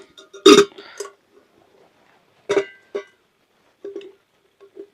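Irregular sharp knocks, each ringing briefly at the same pitch. The loudest comes about half a second in, with another pair near the middle and fainter taps toward the end.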